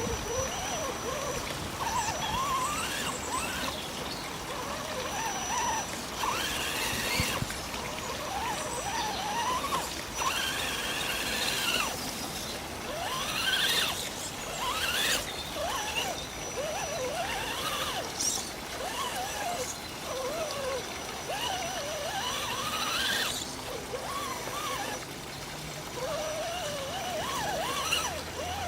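Electric motor of an Axial 4x4 RC jeep whining up and down in pitch as the throttle is worked in short bursts, over a hissy, trickling background.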